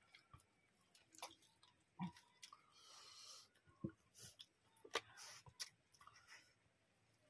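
Quiet eating sounds: chewing and fingers mixing rice and curry on metal plates, with a scattering of small clicks and wet smacks, the sharpest about two and five seconds in.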